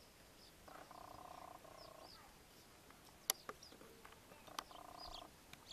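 Frogs croaking in faint pulsing bursts about a second long, with small high bird chirps between them. Two sharp clicks come in the second half.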